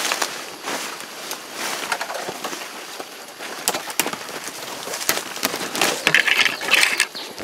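Footsteps crunching through dry leaf litter and brushing through undergrowth, with a few sharp twig snaps midway. The rustling gets louder and denser near the end.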